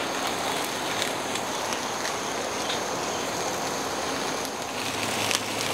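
Ribeye steaks searing directly over hot charcoal on a kettle grill: a steady sizzling hiss with scattered small crackles and pops.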